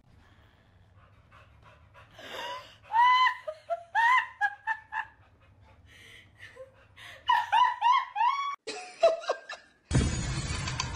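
A person laughing hysterically in high-pitched, squealing fits, in two spells. Near the end a loud sound cuts in abruptly.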